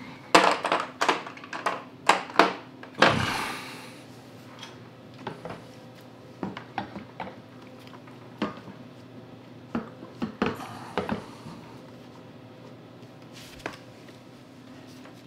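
Clatter and knocks of a snowblower's plastic fuel tank being handled and fitted back onto the engine. A quick run of sharp knocks and a scraping slide come in the first few seconds, then scattered lighter taps.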